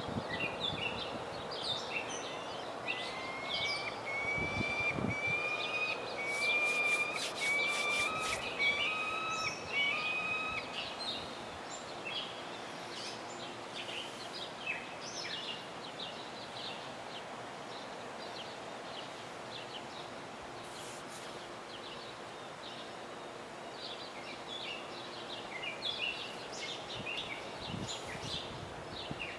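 Birds chirping and calling over a steady outdoor background hiss, with one bird repeating a run of short whistled notes from about three to ten seconds in.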